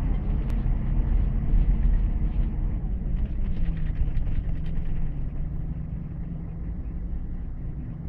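Scania K124IB coach's rear-mounted diesel engine and road rumble heard inside the passenger cabin while the coach drives. The sound is louder for the first few seconds, then eases to a lower, steadier drone with a steady hum about halfway through.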